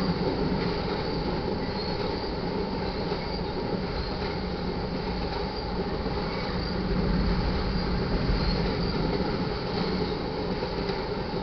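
Tank cars of a crude oil train rolling steadily past, a continuous rumble of steel wheels on the rail.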